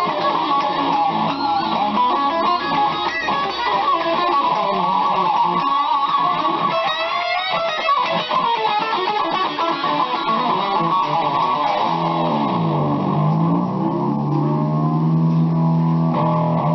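BC Rich Mockingbird electric guitar played in a continuous run of fast notes. About two-thirds of the way in, the pitch dips and comes back up, then the notes ring on.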